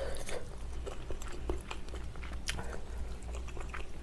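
Close-miked chewing and mouth sounds of someone eating malatang, with scattered soft clicks and one sharper click about halfway through.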